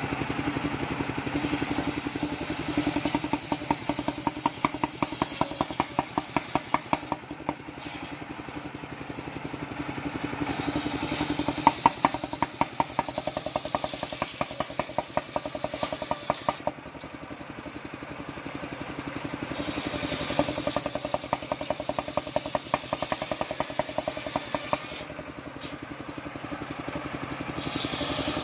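Engine-driven mobile circular sawmill running steadily while its large blade rips waru logs lengthwise. There are three louder cuts of several seconds each, with quieter lulls between them where only the engine runs.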